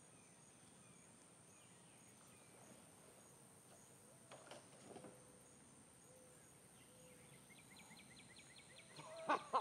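Faint outdoor pond ambience: a steady high-pitched drone with scattered small chirps. Near the end comes a fast clicking trill, then a short loud sound just before the end.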